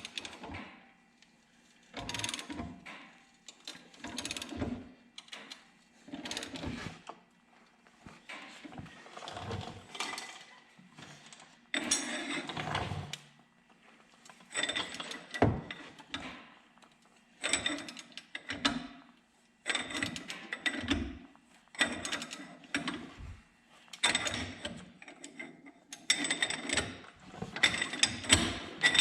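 Ball joint press being cranked with a ratchet wrench to force out a worn upper ball joint: repeated strokes, each a short burst of metal clicking about every two seconds, getting louder toward the end as the press tightens.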